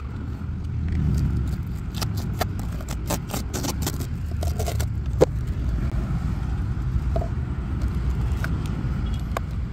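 Sealing tape being peeled off the hatch of a model boat: a quick run of crackling rips about two seconds in, then a single sharp click, over a steady low rumble.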